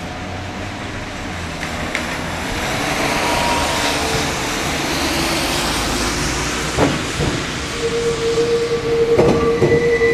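Fukui Railway 200-series articulated tram approaching and rounding a street curve: a rising rumble of wheels on rail, then a few sharp clacks as the wheels cross rail joints and points. About eight seconds in, a steady squeal sets in as the wheels grind through the curve.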